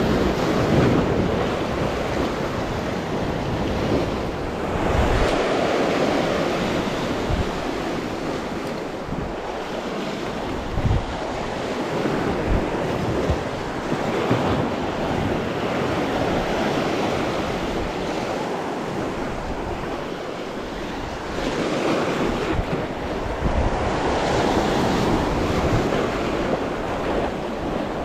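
Surf breaking and washing over rocky reef, swelling and ebbing as each wave comes in, with wind rumbling and buffeting on the microphone.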